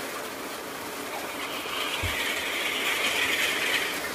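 A buzzing insect call swells about a second and a half in and fades shortly before the end, over a steady hiss of rain.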